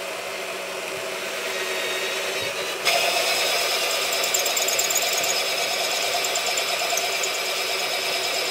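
Bosch PBD 40 bench drill press running steadily with a constant motor hum. About three seconds in it gets louder, with a higher whine added, and holds there.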